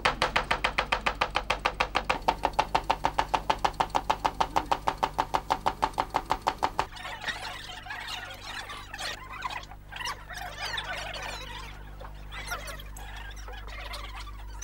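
Rapid, even chopping on a wooden block, about seven strokes a second, which stops about seven seconds in; after it comes softer, irregular rustling and handling noise.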